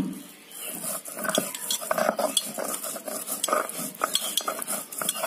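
Stone roller (nora) scraping and knocking on a flat grinding stone (shil) while coriander leaves, chilli and salt are ground into a wet paste: irregular gritty strokes with small stone-on-stone knocks.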